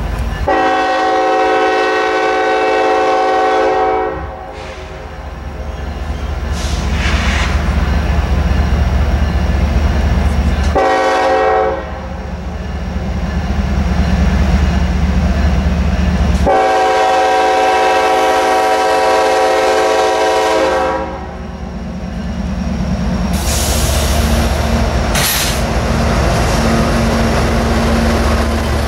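Norfolk Southern diesel locomotive horn sounding a long blast, a short blast and another long blast for a grade crossing, several notes at once, over the steady low rumble of the approaching locomotives' diesel engines, which grow louder as the lead units pass near the end.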